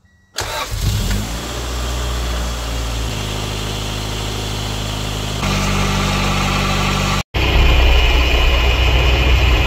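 1997 Acura Integra GS-R's 1.8-litre DOHC VTEC four-cylinder, fitted with an aftermarket Yonaka exhaust, idling steadily while its ignition timing is checked with a timing light after a distributor replacement. The sound comes in suddenly near the start, steps louder about halfway through, and drops out for an instant before returning louder near the end.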